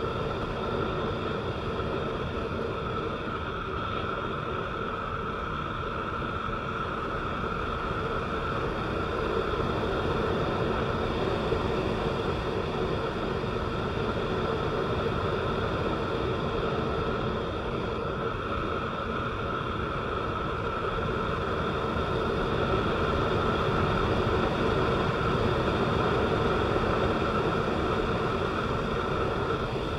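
Steady running noise of a vehicle driving on a wet road, engine and tyre noise blended into one even drone that swells slightly twice.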